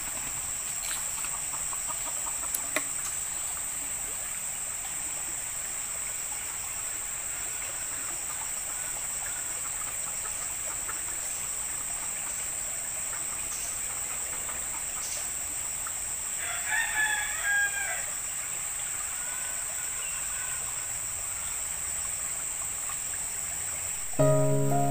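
A steady high-pitched insect drone, with a rooster crowing once, briefly, about two-thirds of the way through. Music comes in near the end.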